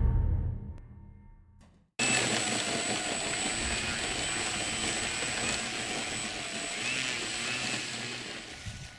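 Intro music fading out, then about two seconds in the electric motor and propeller of a Flex Innovations Cessna 170 RC model plane cut in abruptly, a whine that rises and falls in pitch over rushing air as the plane flies, easing off near the end.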